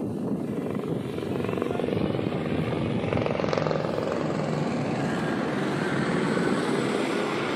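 Light helicopter flying overhead, its rotor beating in a fast, steady chop.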